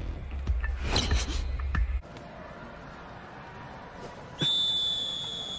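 A volleyball bounced twice on a gym floor, then a referee's whistle blowing one long steady note about four seconds in.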